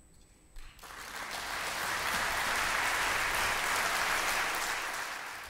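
Audience applauding after the song ends: the clapping starts about a second in, builds quickly, holds steady and begins to die away near the end.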